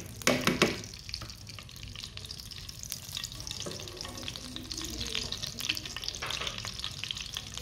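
A few sharp knocks at the start as ghee is knocked off a plastic measuring spoon into the wok, then ghee melting and sizzling with a steady crackle in a hot non-stick wok while a silicone spatula spreads it.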